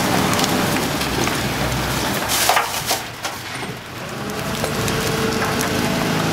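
Garbage truck's rear compactor crushing bagged rubbish in the hopper over the steady running of the truck's machinery, with crackling and a sharp crunch about two and a half seconds in. The mechanism's running tone drops briefly, then comes back steady near the end.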